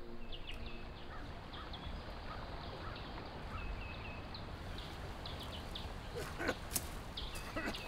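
Small birds chirping in short, repeated calls over a steady outdoor hiss. A few crackles of footsteps through dry brush and twigs come about six to seven seconds in.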